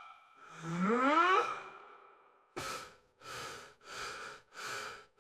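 Instrumental break of the backing song: a pitched swoop rising steeply in pitch, then a run of evenly spaced breathy puffs about every 0.6 s over a faint steady tone.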